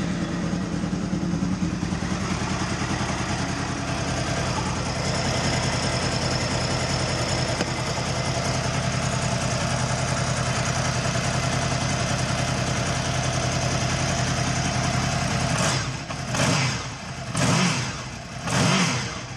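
A Honda VFR800's V4 engine idles steadily, then rises and falls a few times near the end. The exhaust is being checked at the newly welded collector-box-to-silencer joint and is no longer blowing.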